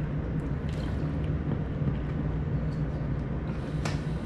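Steady low mechanical hum, with a faint click near the end.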